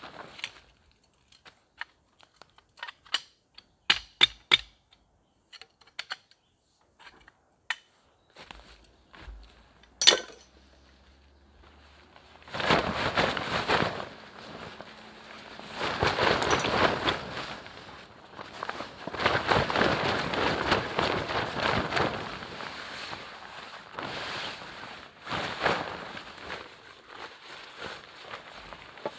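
Camping gear being handled and packed up: a scatter of sharp clicks and knocks, one louder knock about ten seconds in, then from about twelve seconds in several long stretches of loud rustling and crinkling.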